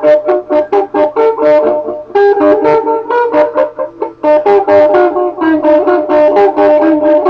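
Instrumental music: a quick, even run of short notes, about five a second, over held tones, easing off briefly about four seconds in.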